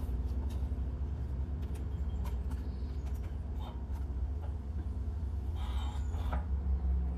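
Kubota tractor's diesel engine idling steadily with a low rumble, while a quick-attach plate is fitted to its loader: a few light metallic clicks and a short scrape about six seconds in.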